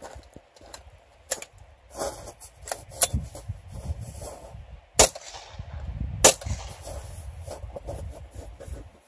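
Suppressed .45 ACP AR-45 rifle with a SilencerCo Hybrid suppressor firing a few sharp shots at close range, the two loudest about five and six seconds in, a little over a second apart. A low rumble fills the gaps between them.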